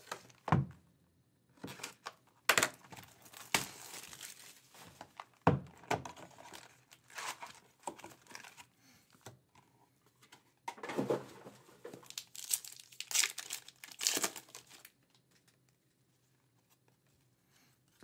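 Foil wrapper of an Upper Deck Artifacts hockey card pack being torn open and crinkled in repeated bursts, with two sharp knocks about five seconds apart.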